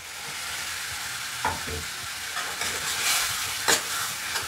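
Tomato masala sizzling in a stainless steel kadhai as sev (crisp gram-flour noodles) is poured in and stirred through with a steel ladle. The ladle knocks and scrapes against the pan a few times.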